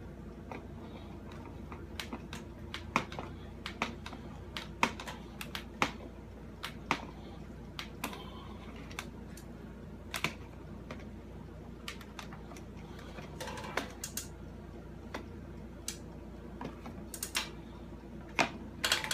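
Irregular sharp clicks of one-handed bar clamps being ratcheted down on a wooden mold, pressing melted HDPE grocery-bag plastic into a block. A steady low hum runs underneath.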